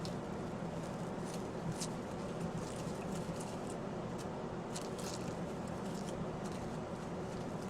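Plastic cling wrap being handled, giving faint scattered crinkles and small clicks over a steady low hum.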